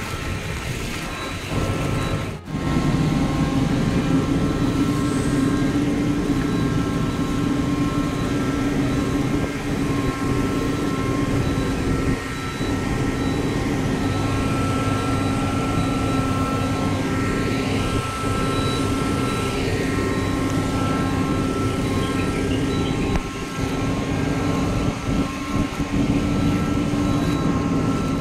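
Steady machinery hum on an airport apron, from aircraft or ground equipment running, with several steady whining tones held throughout. There is a short break about two and a half seconds in.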